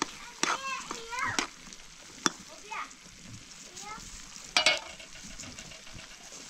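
Cooking on a metal pan over a wood fire: a steady sizzling hiss with sharp clinks of a metal ladle against the pan, the loudest about four and a half seconds in. A few short high chirps sound in between.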